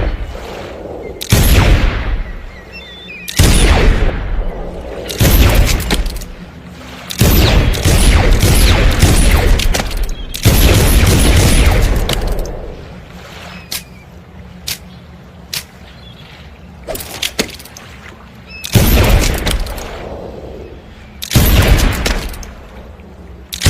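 Pistol gunshot sound effect: a string of loud single shots, each with a ringing, echoing tail, about every two seconds, with a denser run of shots in the middle and a few thin sharp clicks between shots.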